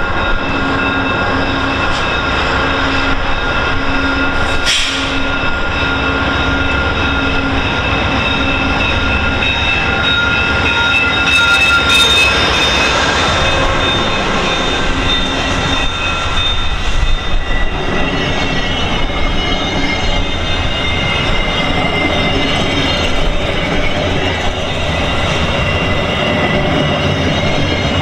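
VIA Rail GE P42DC diesel locomotive and its passenger coaches rolling past slowly as the train brakes for a station stop. The locomotive's engine drone is heard for the first several seconds, then the coaches' steel wheels rumble and squeal steadily on the rails.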